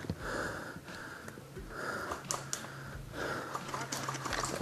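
Heavy breathing close to the microphone, a rush of breath about once a second, with a few sharp ticks between breaths.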